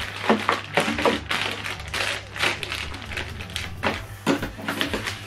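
Clear plastic accessory bags with cables inside crinkling and rustling in the hands, in irregular bursts.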